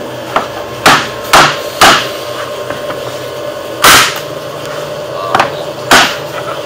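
Rubber mallet striking the plunger of a pneumatic flooring stapler, each blow firing a staple through the tongue of a hardwood floorboard into plywood. There are about five sharp blows: two quick pairs in the first two seconds, then single blows near the middle and about two-thirds of the way through.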